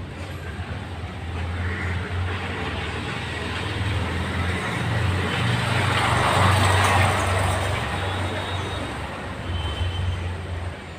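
A passing vehicle: a low engine rumble and a rushing noise that swell to a peak about six or seven seconds in and then fade away.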